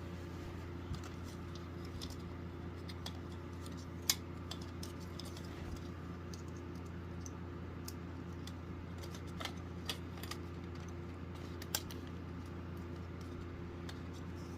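Scattered faint clicks and taps from handling a plastic smoke alarm and its battery, the sharpest about four seconds in, over a steady low hum.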